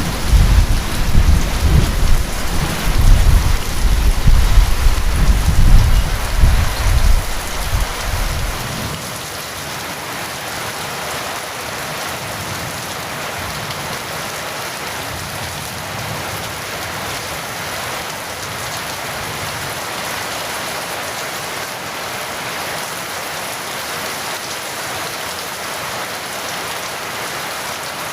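Steady heavy rain, with a long rolling rumble of thunder over it for the first third that cuts off abruptly about nine seconds in, leaving the rain alone.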